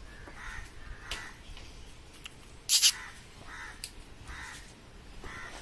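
Crows cawing repeatedly in short, harsh calls, with one brief, much louder noise burst about halfway through.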